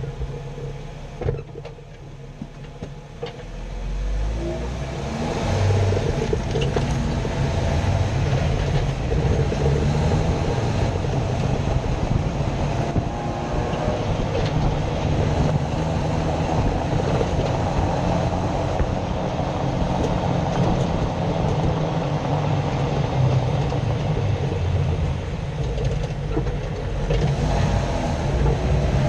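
Jeep Wrangler JK heard from underneath while driving: running gear and road noise with the grinding noise under investigation. It is quieter with a few clicks at first, then builds to a steady loud rumbling grind about four seconds in as the Jeep gets under way.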